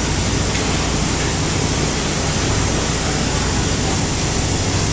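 Steady, even rush of machinery noise from an SMT circuit-board production line, with a low hum underneath.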